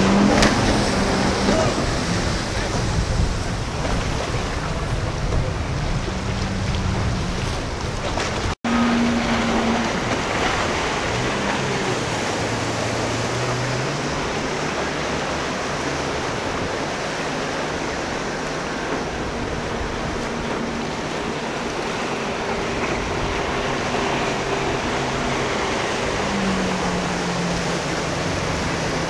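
Several outboard motors on a center-console boat running at speed, with the rush of its wake. After a sudden break about eight and a half seconds in, waves break and wash while boat engines hum, rising and falling in pitch as they work through the swells.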